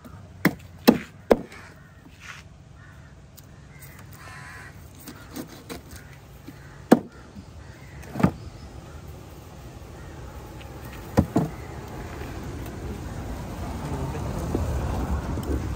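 A heavy cleaver striking through fish onto a stone slab: three sharp chops in quick succession about half a second in, then single strikes spaced several seconds apart. A low rumble builds near the end.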